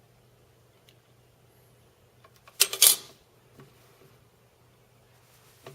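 Plastic clicks and a short clatter from a tool-free hard drive caddy being handled in a PC case's drive bay, with the loudest burst a little under halfway through. A faint low hum runs underneath.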